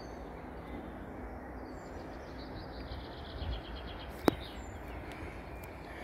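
Outdoor rural ambience: a steady rush of background noise with faint bird chirps. A single sharp click sounds about four seconds in.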